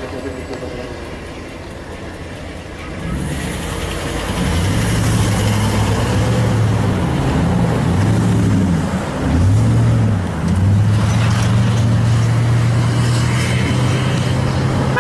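Cars driving past close by over a railroad grade crossing, engine pitch rising and falling as they pull away, loud from about three seconds in. Before that, the quieter sound of a passing train fading away.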